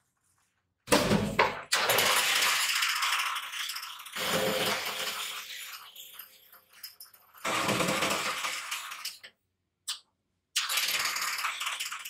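Coil winding machine running, its spindle of bobbins spinning as copper wire winds on, with a noisy metallic rattle. The sound starts about a second in and cuts off and resumes abruptly several times.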